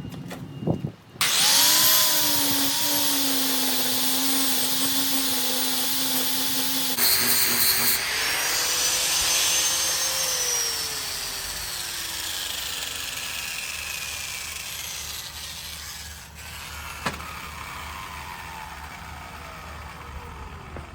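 Electric grinder starting up and grinding on an exhaust pipe flange to flatten it, a loud grinding rush over the motor's whine for about six seconds. The motor then revs up briefly, is switched off, and winds down in a long, slowly falling whine.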